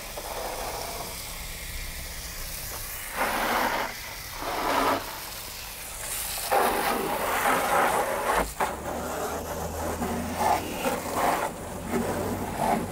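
Water spray rinsing the scrubbed truck suspension: a continuous hiss that swells and eases as the jet moves over the parts.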